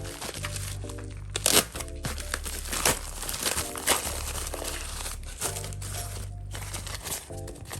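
Packaging crinkling and rustling as a box is unpacked, in irregular crackles with the loudest about one and a half seconds in, over background music with a steady bass line.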